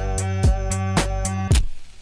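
Background music with a steady beat of about two strikes a second over a bass line. It cuts off suddenly near the end, leaving a fading hiss.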